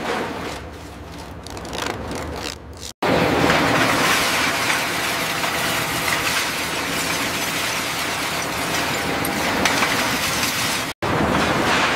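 Heavy machinery noise from a scrap-metal shredding and conveying line: uneven mechanical noise for the first three seconds, then after a sudden brief dropout a steady, loud mechanical noise of conveyors moving shredded aircraft metal scrap, cut off again briefly near the end.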